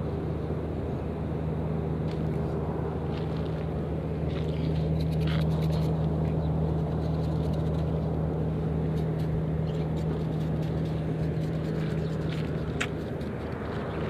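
An engine running steadily with a low, even hum, with a few faint clicks over it.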